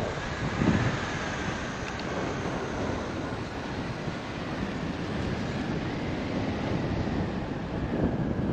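Steady rushing wind noise from the airflow over the microphone of a paraglider pilot in flight.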